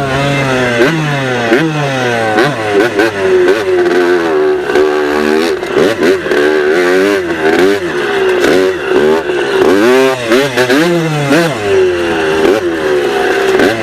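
Dirt bike engine revving up and down over and over as it is ridden, its pitch climbing and dropping about once a second with the throttle.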